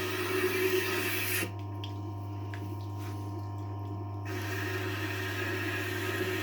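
Tormek T-8 sharpener's motor running with a steady hum while a kitchen knife blade is drawn across the turning wheel, making a steady scraping hiss. The hiss stops about a second and a half in, leaving only the motor hum, and resumes around four seconds in.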